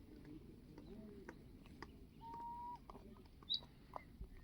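Faint bird calls: a few short high chirps and one steady whistled note about two seconds in, over a faint background with light clicks.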